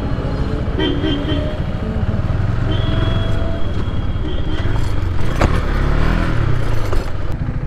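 KTM Duke 390's single-cylinder engine running as the bike is ridden slowly, with a brief rev up and back down about six seconds in.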